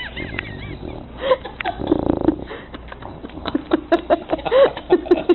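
English bulldog whimpering in its sleep: a run of short, wavering whines and snuffles that come thicker and louder in the second half.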